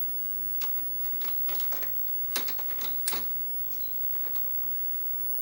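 Irregular light clicks and taps of a laptop's plastic screen cover being handled and fitted into place, the loudest two about two and a half and three seconds in.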